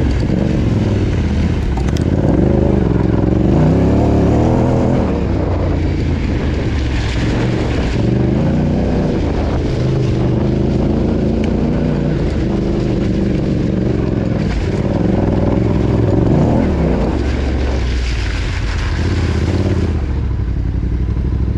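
Yamaha Ténéré 700's parallel-twin engine being ridden off-road, the revs rising and falling over and over as the throttle opens and closes.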